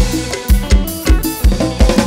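Mor lam band playing without singing: a drum kit beating a steady, strong bass-drum pulse over sustained melody instruments.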